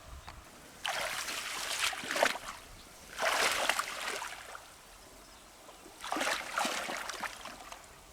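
Water splashing and sloshing in three bursts of about a second each, with quieter gaps between.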